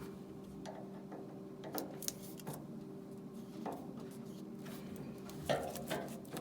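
Hands working a clamp on a flexible foil dryer duct: a few irregular small clicks and knocks of metal handling over a steady low hum.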